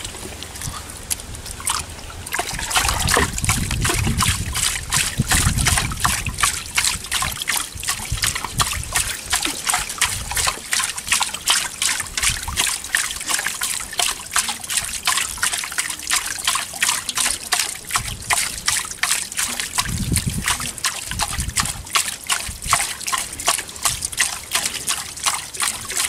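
A hand splashing and scooping through shallow muddy water in a small hole, with rapid repeated splashes, a few a second, from about two seconds in.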